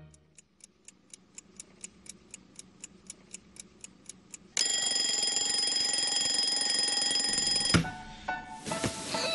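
Seiko quartz alarm clock ticking faintly, about four ticks a second. About four and a half seconds in, its alarm goes off with a loud, steady ring. About three seconds later it stops abruptly with a click as a hand hits the button on top of the clock.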